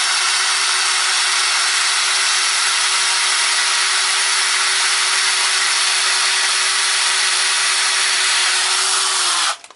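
Electric hand drill running at a steady speed as it drills out the rivet of a die-cast toy car, a constant whine over a grinding hiss; it stops near the end.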